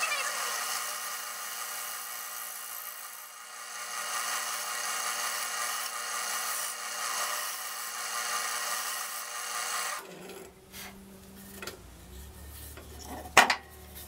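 Wood lathe running while a spindle gouge cuts across the face of a spinning block of 2x8 construction lumber, a steady rasping over the motor's hum. About ten seconds in the cutting and lathe stop abruptly, leaving a quieter stretch with one sharp knock near the end.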